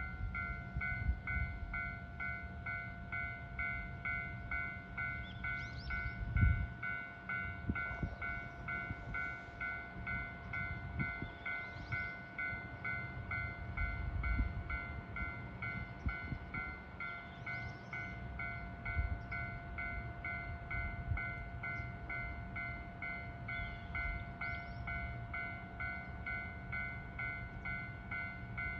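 Electronic railway warning bell ringing steadily at about two strokes a second, the signal that a train is approaching, with a low rumble underneath.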